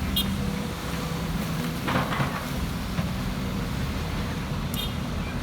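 Diesel engine of a heavy machine, an excavator or tractor, running steadily with a low hum. A short rush of noise comes about two seconds in, and brief high chirps sound near the start and near the end.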